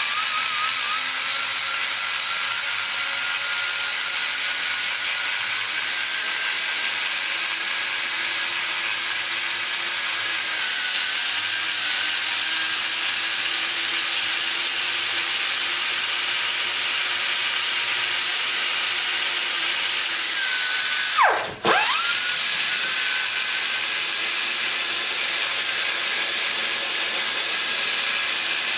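Die grinder with a ball-shaped burr running at high speed, cutting down the machinist's ridge of cast iron around a valve seat in a Ford FE 390 cylinder head's combustion chamber: a steady high whine over a hiss. About two-thirds of the way through, its pitch and level dive for a moment, then come straight back up.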